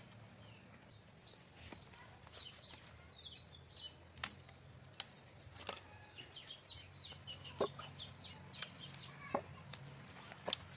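Birds calling in short chirps and clucks throughout, chickens among them. Several sharp clicks or taps, the loudest sounds, come at irregular intervals from partway in to the end.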